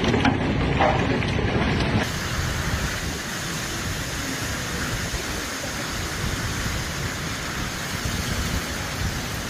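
Hailstones falling and striking, with scattered sharp clicks of single stones hitting hard surfaces. About two seconds in, this gives way to the steady, even hiss of a heavy downpour and wind in the trees.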